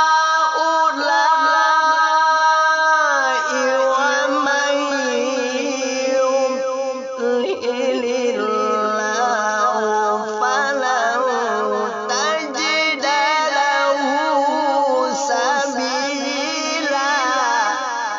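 A qori reciting the Quran unaccompanied in the Indonesian tilawah style: a high-pitched male voice sustains a long melismatic phrase. The pitch slides down about three and a half seconds in, then runs into quick, wavering ornaments.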